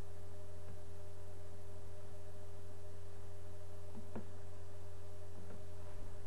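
Steady electrical hum with a couple of thin steady tones above it, and two faint taps about four seconds in.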